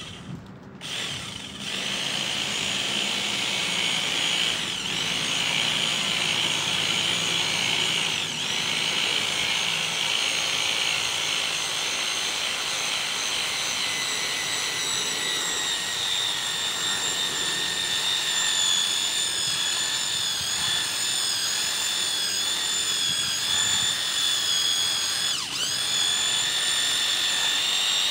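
A corded electric power tool running continuously with a steady high whine, coming up to speed about a second in. Its pitch dips briefly three times, as the motor is loaded.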